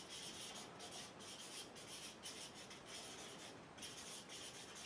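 Marker pen writing on chart paper: a steady run of short, faint scratching strokes.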